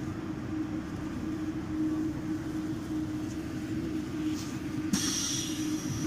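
MBTA Red Line subway train running: a steady rumble with a low hum. A high hiss starts suddenly about five seconds in.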